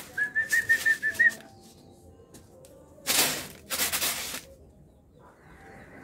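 Zebra dove chick giving a rapid run of about seven short, high begging peeps with wing fluttering in the first second, followed by two loud rustling bursts about three and four seconds in.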